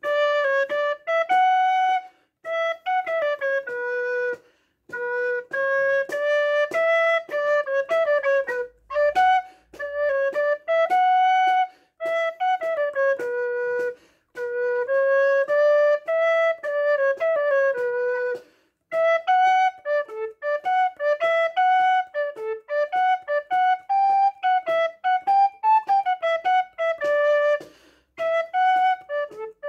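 A wooden fluier in A, the Romanian shepherd's duct flute, playing a Moldavian sârbă dance melody. The notes come in phrases with short gaps between them.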